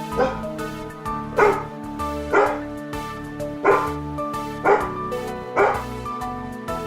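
Background music with a dog barking six times, evenly spaced about once a second.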